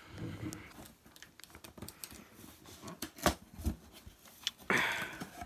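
Cardboard shipping box being opened by hand: scattered clicks and scrapes of cardboard and packing tape, with a sharp knock about three seconds in and a short rasp near the end.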